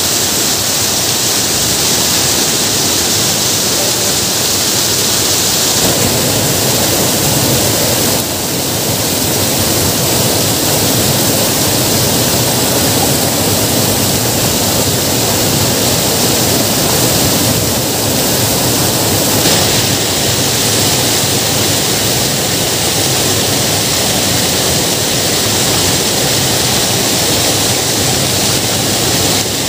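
Loud, steady rushing of water pouring over a lake's overflow weir and streaming across stone.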